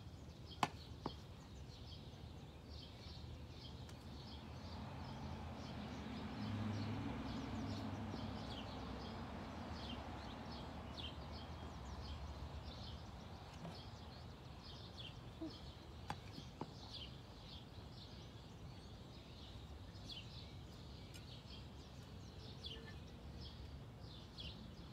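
Small birds chirping over and over in the background, many short high chirps. A few sharp knocks from the shovel working the soil stand out, and a low rushing noise swells and fades between about four and twelve seconds in.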